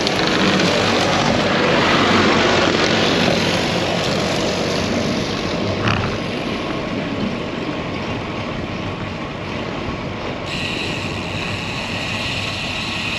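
Wind rushing over the microphone of a bicycle-mounted camera while riding on the road, with the low drone of a right-of-way mowing tractor's engine in the first few seconds. A single click comes about halfway through, and a higher hiss comes in near the end.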